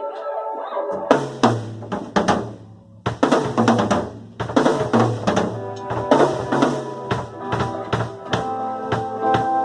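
Band playing with a drum kit: bass drum, snare and rimshots struck in a steady rhythm over sustained chords and a bass line that comes in about a second in.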